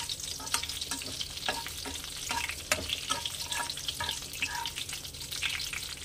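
Whole spices (panch phoron, dried red chillies and a bay leaf) sizzling in hot mustard oil in a nonstick kadai: the tempering being fried. Over the steady sizzle, a metal spatula stirs with repeated irregular taps and scrapes against the pan.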